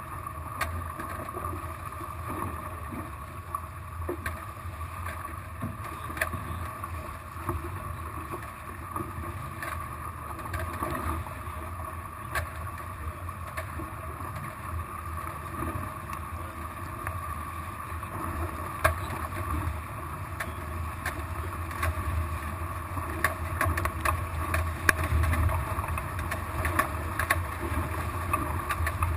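Water rushing and splashing between the hulls of a small catamaran-type sailboat under way, with a steady low rumble of wind on the microphone and scattered sharp ticks. It grows louder and choppier in the last third.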